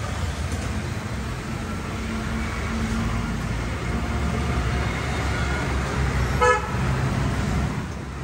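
Road traffic rumbling by, with one short, loud vehicle horn toot about two-thirds of the way through.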